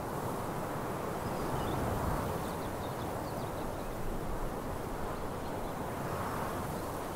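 Outdoor ambience: a steady low rumbling noise, with a few faint bird chirps about two to three seconds in.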